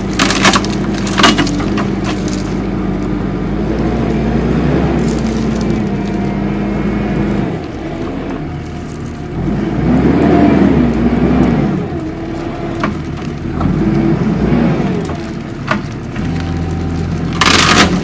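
Kubota compact track loader's diesel engine running, its engine speed rising and falling and loudest about halfway through. A hydraulic tree shear snaps through sapling stems with sharp woody cracks, a couple near the start and more near the end.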